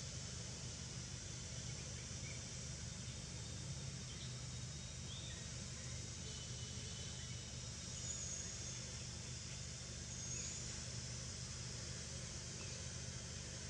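Outdoor background noise: a steady low rumble, with a few faint, short high chirps now and then, the clearest about eight and ten seconds in.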